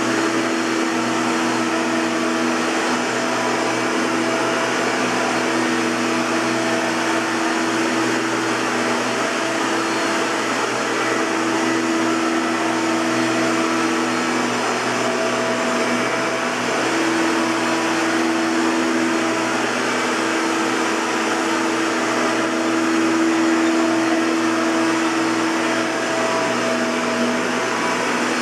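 Hoover Caddy Vac Elite bagged upright vacuum cleaner running steadily, an even airy rush with a motor hum that swells and fades slightly.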